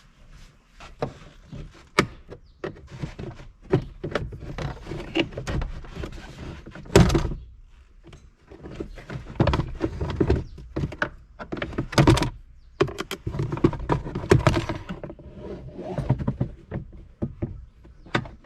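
Plastic glove box of a car dashboard being pried loose with a tool: a run of irregular clicks, knocks and thunks as its side pressure clips are forced out. The loudest knocks come about seven and twelve seconds in.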